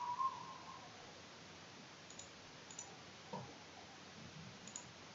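A few faint, isolated clicks of a computer mouse and keyboard, spaced out over a few seconds, against quiet room tone.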